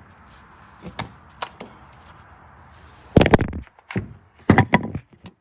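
A few light knocks, then two louder clattering bursts in the second half, each about half a second long: handling knocks and clunks.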